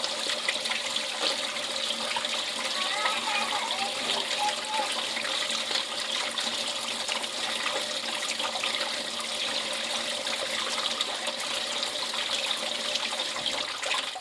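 Water running steadily through open household plumbing, a constant rush with a faint steady tone under it, cutting off at the end.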